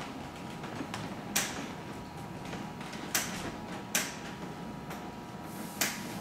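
Rotating car-display turntable turning: a steady mechanical hum with four sharp clicks spaced unevenly through the rotation.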